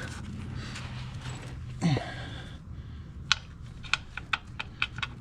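A man's short falling-pitched grunt, then a run of light, irregular clicks and taps.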